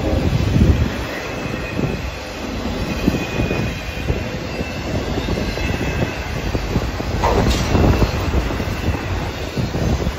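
Freight train of auto rack cars rolling past: a steady rumble of steel wheels on rail with irregular wheel clicks and a faint high-pitched wheel squeal. One sharper clank comes about seven seconds in.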